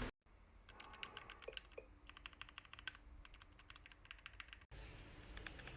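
Faint, rapid typing on a mechanical keyboard fitted with Gateron Pro 2.0 Yellow linear switches: a steady stream of keystroke clacks, with a brief break about four and a half seconds in.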